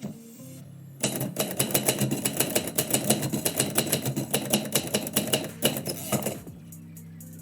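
Typewriter typing: a fast, unbroken run of keystrokes starting about a second in and stopping about a second before the end.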